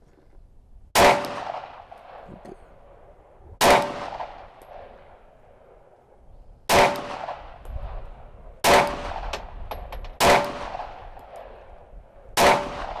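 Six slow, deliberate 9mm pistol shots from a Glock 19, spaced about two seconds apart, each followed by a short ringing echo. This is slow fire to sight in a newly mounted slide red dot.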